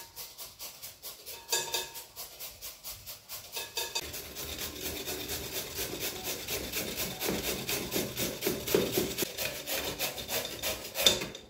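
Raw carrots grated by hand on a metal grater held in a glass bowl: a rhythmic rasping, stroke after stroke, getting faster and more continuous about four seconds in.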